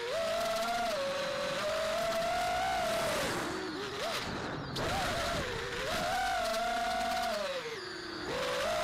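Armattan Rooster FPV quadcopter's brushless motors and propellers whining, heard from the onboard camera: the pitch climbs and falls with the throttle, dropping low about three and a half seconds in and again near the end before climbing back. A rush of air runs under the whine.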